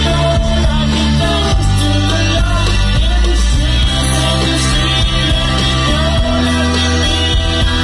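Rock band playing live through a PA, a male lead singer's vocals over electric guitar, bass and drums.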